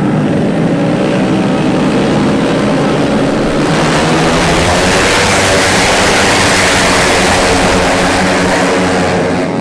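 Racing motorcycle engines running at a steady drone, growing louder and rougher about three and a half seconds in and easing slightly near the end.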